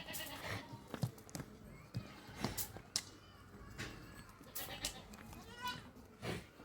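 A goat bleating, one wavering call about five seconds in, among scattered knocks and clatter.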